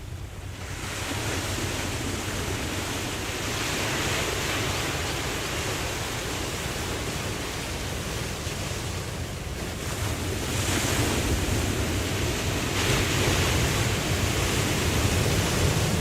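Ocean surf, waves washing in as a broad hiss that swells several times, a few seconds apart, over a steady low rumble.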